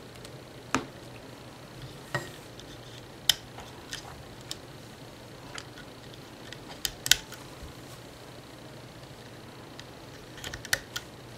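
Irregular light clicks and snaps as rubber bands are stretched onto the plastic pegs of a rubber-band loom and fingers knock against it, over a faint steady hum. The loudest snaps come in a cluster about seven seconds in and again near the end.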